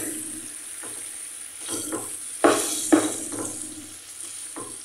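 Butter melting into a boiling wine sauce in a non-stick frying pan, the sauce sizzling steadily, while a wooden spatula stirs and scrapes across the pan in several strokes.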